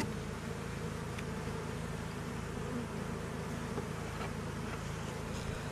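Honeybees buzzing steadily in a mass around an opened Langstroth hive, with a few faint scrapes and clicks of a metal hive tool working burr comb off the inner cover.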